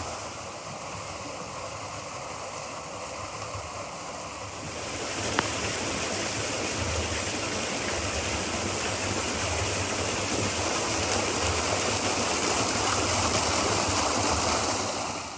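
Steady rushing of water falling over rocks at a small waterfall. It grows louder and brighter about five seconds in.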